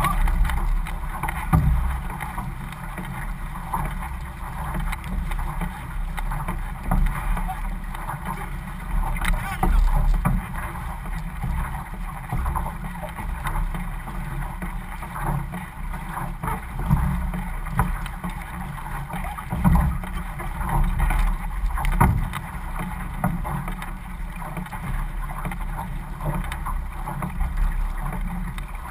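Water rushing and hissing along the hull of a paddled outrigger canoe under way, with paddle blades splashing in and out on the strokes as irregular louder surges. Wind buffets the microphone as a low rumble.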